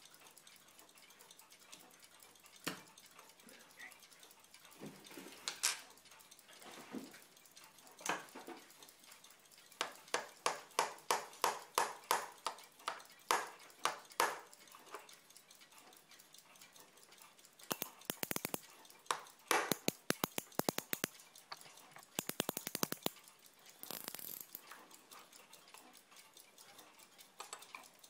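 Small watchmaker's hammer tapping on a brass plate laid on a steel bench block: a few single taps, then a run of about a dozen even taps at two or three a second, then a quick patter of lighter taps.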